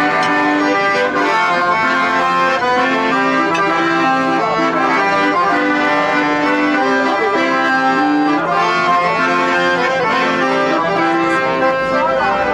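Piano accordion playing a tune, its melody moving note to note without a break.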